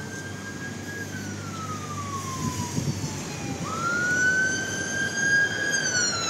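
Siren wailing: a slow rise and fall in pitch, twice. The tone holds high, then slides down over a couple of seconds, then swoops sharply back up about halfway through and falls again near the end, louder the second time.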